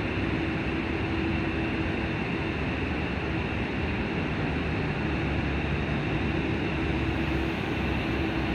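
Jet engines of a Boeing 767-200 freighter running up for takeoff: a steady rushing noise with a held hum, the low rumble swelling about halfway through.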